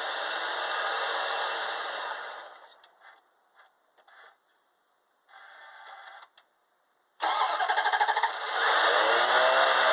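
Dodge engine running dies away over the first two and a half seconds, with a few faint knocks and near silence after. About seven seconds in, the starter cranks it with a rapid chatter and the engine catches and runs, its pitch wavering as it settles. The engine stalls on its own when left to idle and is under a vacuum test for a suspected clogged catalytic converter or muffler.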